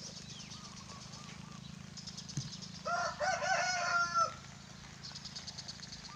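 A rooster crowing once, about three seconds in, lasting a second and a half, over a low steady hum and faint high buzzing.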